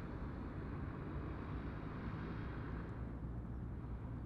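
Distant jet engines of a twin-engine widebody airliner on final approach: a steady, low, rumbling roar. The higher hiss thins out about three seconds in.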